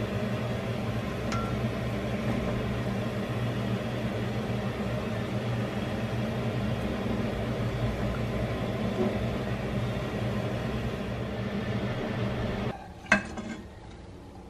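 Steady low hum of a kitchen range hood fan over a gas stove. The hum stops abruptly near the end, followed by one sharp clink of a dish or utensil.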